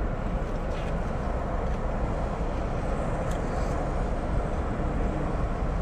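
Steady low rumble and hiss of a car's engine running, heard from inside the cabin, with a few faint clicks of chewing a big mouthful.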